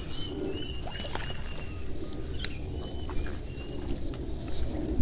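A bird chirping in short, high notes about every half second, with a couple of sharp clicks.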